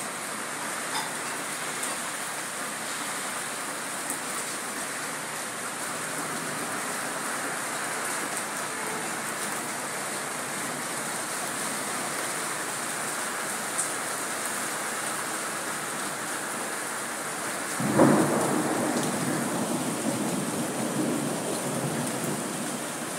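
Steady rain falling on a wet street and leaves. Near the end a sudden clap of thunder breaks in and rumbles away over a few seconds.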